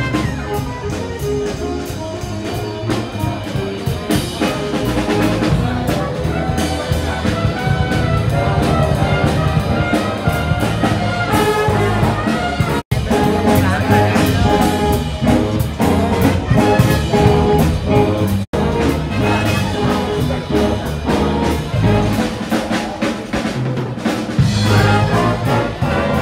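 Music plays steadily, with two brief dropouts about 13 and 18½ seconds in.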